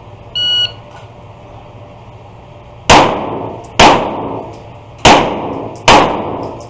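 A shot timer's start beep about half a second in, then four pistol shots: two a little under a second apart, a pause of about a second, then two more. Each shot echoes off the walls of the indoor range.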